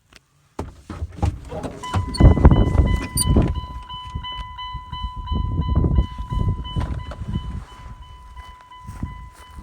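Wind gusts buffeting the microphone in uneven low rumbles. From about two seconds in, a steady high electronic tone sounds continuously underneath.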